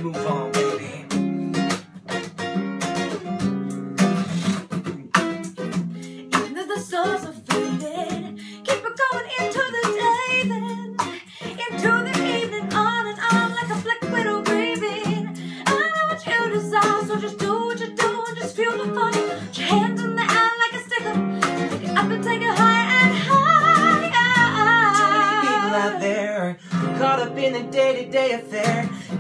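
Acoustic guitar strummed in steady chords, with a voice singing a melody over it from about nine seconds in; near the end the singing wavers with a strong vibrato.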